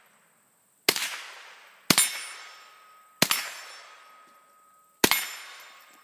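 A string of rifle shots about one to two seconds apart, four in all, each followed by the ringing clang of a hit steel target plate.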